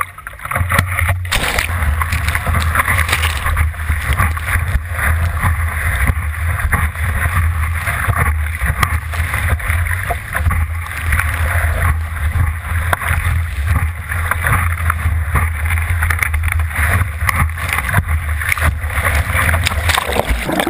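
Water rushing and splashing against a surfboard, picked up close by a GoPro mounted on the board, with a steady deep rumble under it. It starts suddenly just under a second in.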